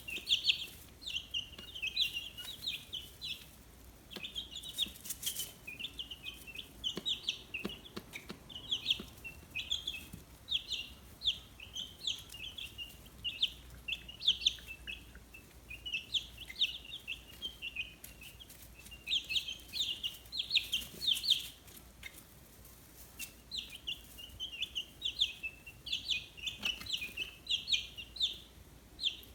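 A brood of fifteen-day-old chicks peeping continuously, many short high chirps overlapping one another.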